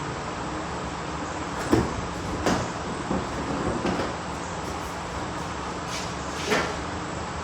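Several short knocks and clunks, scattered unevenly over a steady background hiss, the loudest about two seconds in.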